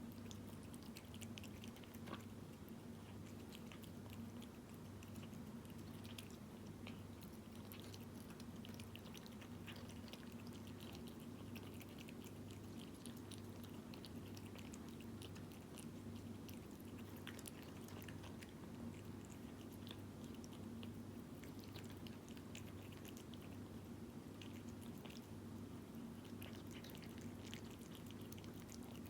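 A cat eating wet food in jelly: faint, quick, irregular wet chewing and lapping clicks, kept up throughout.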